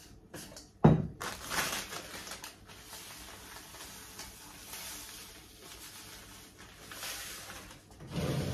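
Salt, ground pepper and garlic being tipped into a salt container: a knock about a second in, then a long dry, grainy rustle of the seasoning pouring in, with louder clatter of the containers being handled near the end.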